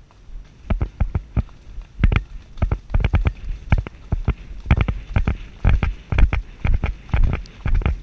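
Horse's hooves on a dirt track, a steady clip-clop of footfalls at roughly three to four a second, starting about half a second in.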